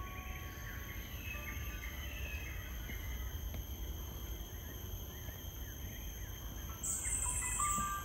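Tropical rainforest ambience: a steady high-pitched insect drone with scattered bird chirps over a low rumble, and a louder high insect buzz starting about seven seconds in.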